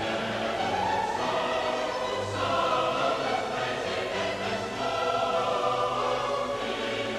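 Classical sacred music: voices singing long held notes over an orchestral accompaniment.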